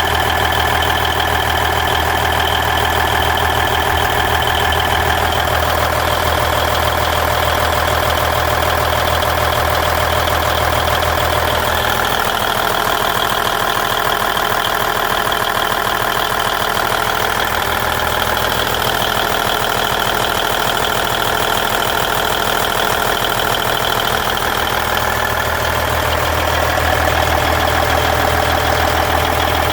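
Cummins N14 14-litre inline-six diesel in a 1999 Volvo VNL 610 truck idling steadily.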